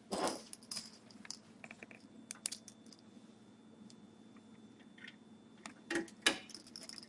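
Small metal hard-drive mounting screws clinking and rattling as they are picked up and handled, with scattered light clicks; a louder rattle right at the start and two more near the end.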